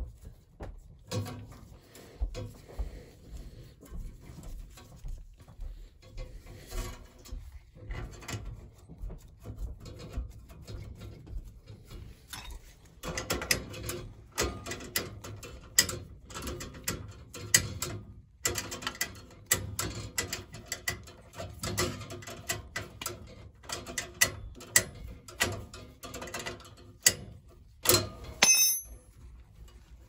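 Hand-work at a gas boiler's control valve: irregular metallic clicks, taps and scrapes of a flare wrench and fittings as the copper thermocouple line is routed and its nut tightened into the valve. Busier in the second half, with a few sharper knocks near the end.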